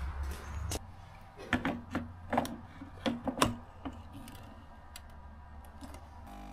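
Sharp metal clicks and clunks of an espresso machine's portafilter being seated and twisted into the group head, several knocks between about a second and a half and four seconds in. Near the end the machine's pump starts with a steady hum.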